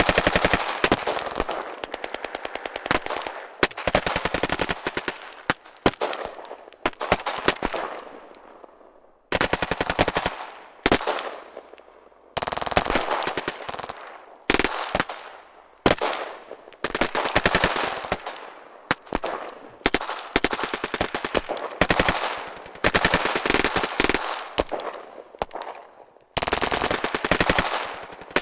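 Battlefield gunfight sound effect: bursts of automatic rifle fire, several seconds each, separated by short gaps in which the shots echo and die away.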